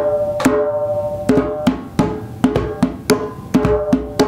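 Djembe drum struck by hand in an irregular rhythm, about a dozen strikes, each with a short ringing tone after it.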